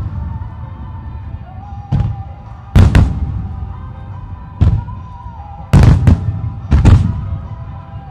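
Aerial firework shells bursting in a music-synchronised display: about five sharp bangs, some in quick pairs, each with a rumbling echo, over music playing throughout.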